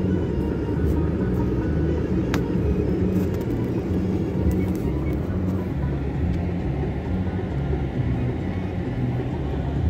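Car engine and road rumble heard from inside the cabin as the car moves slowly: a steady low rumble.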